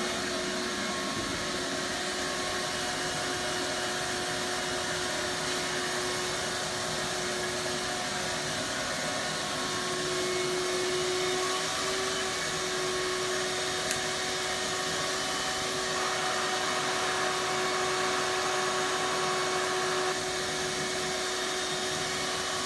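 Shop vac running steadily, a constant whooshing motor with a few fixed whining tones over it.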